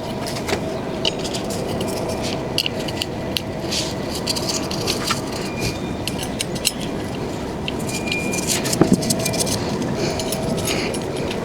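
Small metal tools and parts clinking and scraping, a run of light clicks and ticks over a steady background noise, busier near the end.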